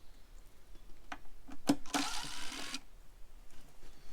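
Handling noise from a nest-box geocache: a few light clicks, a sharp knock about a second and a half in, then a brief scraping rustle.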